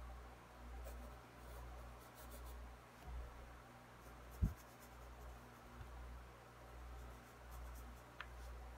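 Pencil scratching on sketchbook paper in short strokes, faint, with a single low thump about halfway through over a soft, slowly pulsing low rumble.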